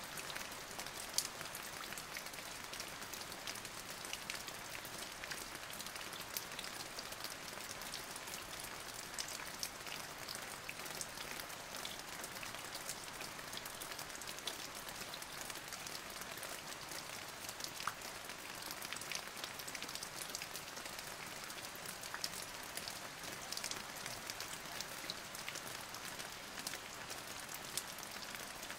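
Steady rain falling, an even hiss dotted with many small, sharp drop impacts on a surface.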